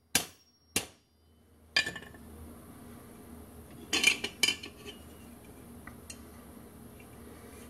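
Steel hand tools clinking against a railroad-track anvil: a few light, sharp clinks in the first two seconds, then two louder clanks about four seconds in.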